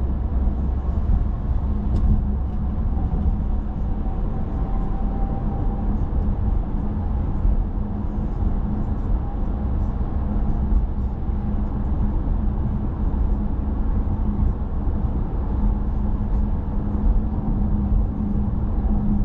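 A car driving on a city road: a steady low rumble of tyres and engine with a faint constant hum, and a single light click about two seconds in.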